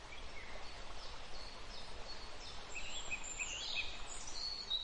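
Outdoor ambience of birds chirping and singing over a steady background hiss and low rumble. A run of short, quick chirps comes in the second half, with higher calls near the end.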